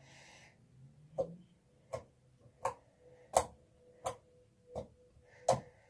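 Clear-glue slime being squeezed and kneaded by hand, giving sharp clicks and pops about every three quarters of a second.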